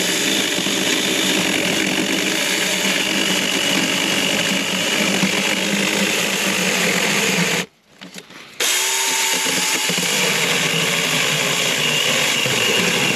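Saker mini cordless electric chainsaw with a 4-inch bar running and cutting through a log about as thick as the bar can take. The motor cuts out about 7.5 seconds in, is quiet for about a second, then starts again and keeps cutting.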